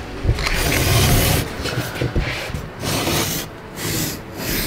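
Snap-off utility knife blade slicing through an EVA foam traction turf sheet along a metal straight edge: a hiss of the blade through the foam, broken by a few short pauses between pulls.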